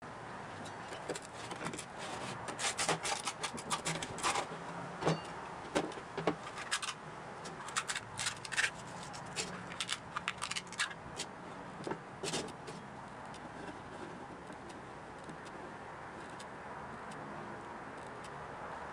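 A hard plastic 3D-printed part being handled, lifted and set down on a table: a run of sharp clicks, taps and light scrapes, which die away a little past halfway, leaving only a steady hiss.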